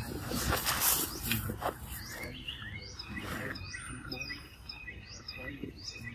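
Birds chirping: many short, high chirps and down-sweeping notes, after about two seconds of louder rustling.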